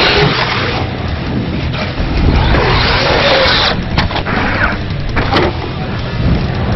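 Electric Traxxas RC monster truck driven hard on loose sand: a steady rush of tyres churning and spraying sand, with a faint motor whine gliding up and down. About four seconds in, and again about a second later, come sharp knocks as the truck tumbles and lands upside down.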